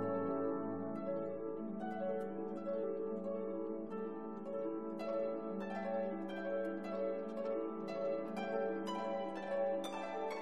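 Background music: plucked notes over held lower tones, the plucked notes coming more often from about halfway through.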